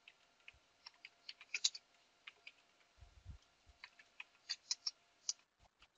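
Faint, irregular keystrokes on a computer keyboard as a command is typed, single key clicks spaced unevenly with short pauses.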